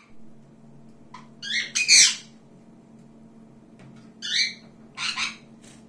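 Pet birds calling in short calls, each a second or less: the loudest about two seconds in, two more near the end. A faint steady low hum runs underneath.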